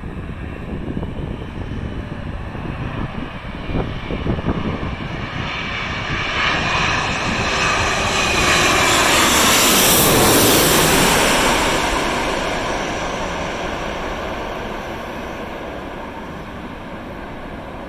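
Landing airliner passing low overhead on final approach, its engine noise building to a peak about ten seconds in, dropping in pitch as it goes by, then fading. Gusty wind buffets the microphone, most plainly in the first few seconds.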